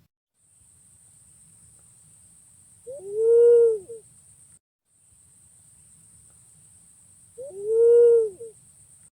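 Punai pink (walik ungu) green pigeon calling twice, about four seconds apart. Each call is a mellow, hooting whistle about a second long that rises and then falls in pitch.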